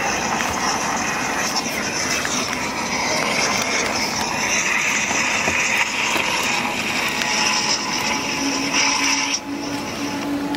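Fireworks display: a dense, continuous crackle and hiss that stops abruptly about nine seconds in.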